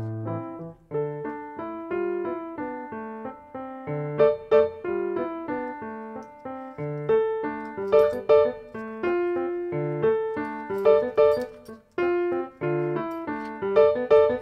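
Solo piano music: a melody of single struck notes over low bass notes.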